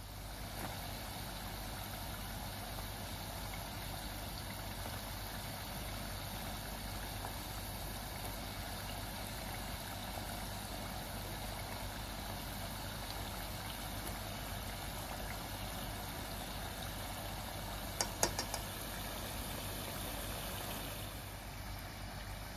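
Potato sticks deep-frying in hot oil, a steady sizzle and bubbling. A few quick clicks of metal tongs against the pan about three-quarters of the way through.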